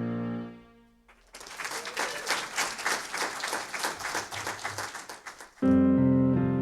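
A held electric piano chord dies away, then an audience claps for about four seconds. Near the end the electric piano comes in again with a new sustained chord.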